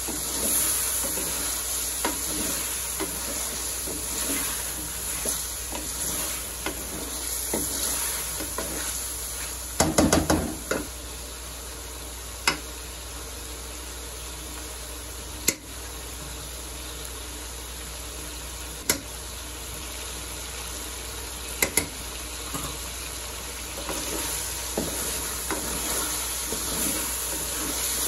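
Chicken and tomatoes sizzling in oil in a metal karahi, stirred with a wooden spatula that scrapes and knocks against the pan. There is a short run of loud knocks about ten seconds in and a few single sharp knocks after it.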